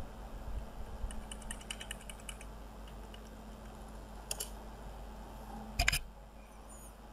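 Computer keyboard typing: a quick run of keystrokes about a second in, then a single key press, and a louder press about six seconds in.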